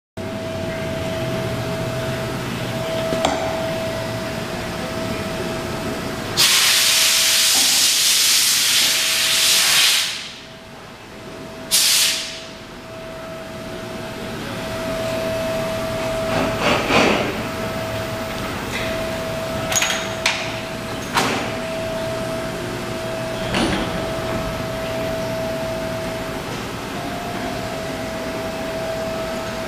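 Workshop background noise: a steady hum under a thin, high, steady tone that keeps cutting in and out. A loud hiss lasts about three and a half seconds, and a shorter hiss follows a couple of seconds later. A few sharp knocks come later on.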